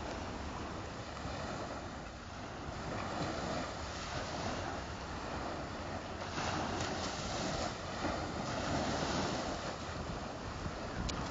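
Small sea waves breaking and washing up a sandy beach in a steady hiss, swelling louder a few times as each wave breaks.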